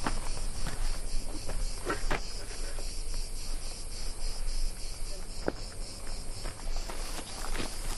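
Insects chirping in a steady, high-pitched pulsing chorus, with scattered soft clicks and rustles.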